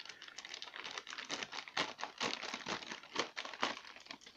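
A clear plastic bag crinkling and rustling in a rapid, irregular run of crackles as it is opened and handled by hand.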